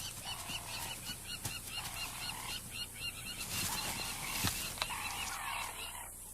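Wild animal calls: a rapid run of short, high chirping calls repeated several times a second, with a few longer, lower calls among them.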